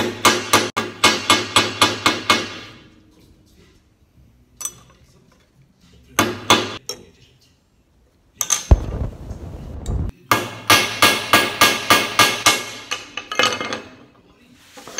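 Hand hammer striking a small bent steel bracket on a steel block to straighten it: runs of quick ringing metal-on-metal blows, about four a second. There is a pause with a few single blows, a short rough rustling noise in the middle, then another fast run of blows.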